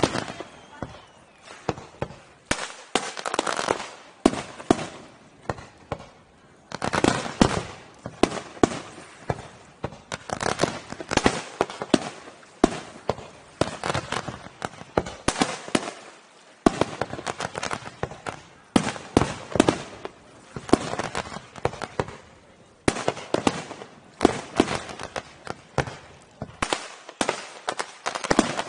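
Fireworks display: shells launching and bursting in rapid, irregular volleys of sharp bangs, with a couple of short lulls.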